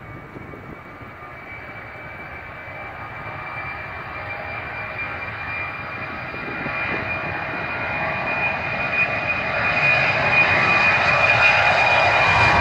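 Boeing 767-300 freighter's twin turbofan engines at takeoff thrust during the takeoff roll, growing steadily louder as the jet approaches and lifts off, with a steady high fan whine over the jet rumble.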